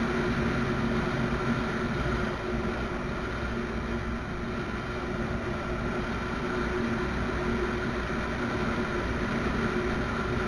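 Honda Unicorn 160's single-cylinder four-stroke engine running steadily while riding, under a steady rush of wind noise.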